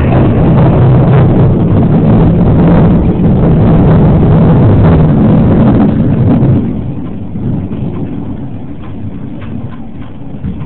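Loud, long rolling thunder rumble from a nearby lightning strike, dying down about two thirds of the way through to a quieter background of storm noise.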